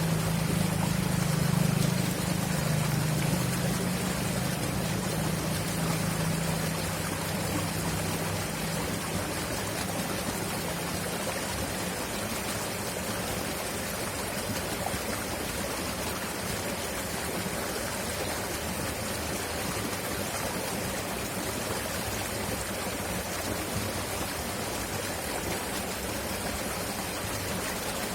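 River water flowing loudly, a steady rushing. A low drone underneath it fades away over roughly the first ten seconds.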